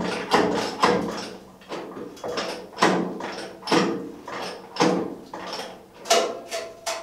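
About a dozen hammer blows on steel, irregularly spaced at one to two a second, each ringing briefly with a metallic tone.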